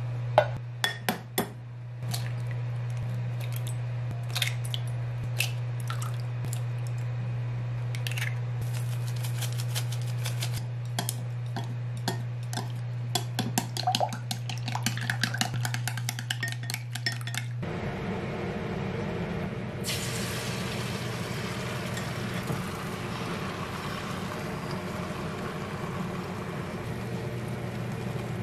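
A knife knocks through ham onto a wooden cutting board a few times. Wooden chopsticks then clink quickly against a glass bowl as eggs are beaten, over a steady low hum. From about two-thirds of the way in, beaten egg sizzles steadily in a hot nonstick frying pan.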